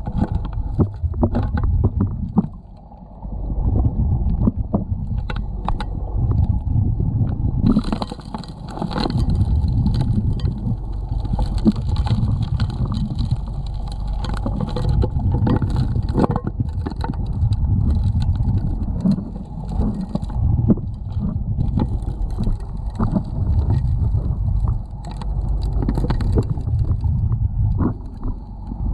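Underwater sound of a gold suction dredge working a river bottom: a steady, muffled low rumble with many sharp clicks and knocks of stones and gravel rattling at the suction nozzle, the clicks thickening after the first several seconds.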